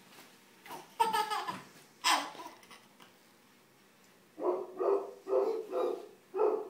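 Baby laughing: two short squealing laughs about a second apart, then, after a pause, a run of five rhythmic laughs about two a second near the end.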